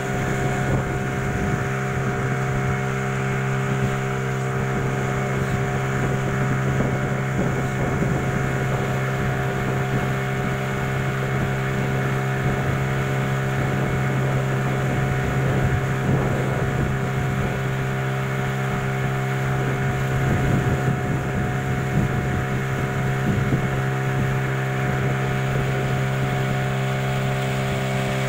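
Small riverboat's motor running steadily underway, at one unchanging pitch.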